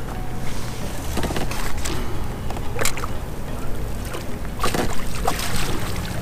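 Wind buffeting the microphone with a steady low rumble, over scattered knocks and a run of splashes as a flounder is brought alongside a kayak and scooped into a landing net. The splashing is heaviest about five seconds in.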